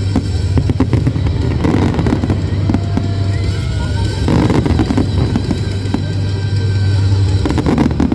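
Aerial fireworks display going off in a rapid, irregular string of bangs and crackles, over a steady low rumble.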